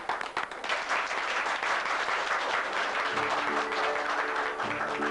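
Audience applauding, a dense steady clatter of many hands. About three seconds in, background music with plucked notes comes in beneath the applause.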